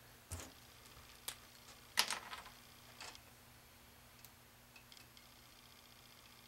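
A few small clicks and taps as an SO-239 connector and copper wire are handled, the loudest about two seconds in, followed by a few faint ticks.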